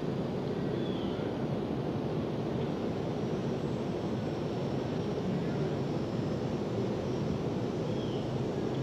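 Steady, even rushing noise, low and without any clear pitch, with a faint short chirp about a second in and another near the end.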